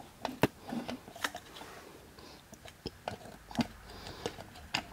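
Irregular light metallic clicks and taps as the wastegate lever of a stock Audi 2.9 TFSI turbocharger is worked up and down and side to side by hand. The clicks come from loose play in the wastegate, which rattles where it should be solid: a sign of a worn wastegate.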